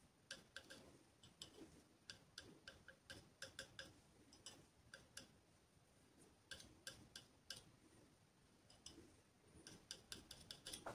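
Light, irregular tapping of a painting tool's tip against a small canvas as acrylic paint is dabbed on in small strokes, in quick clusters with short pauses.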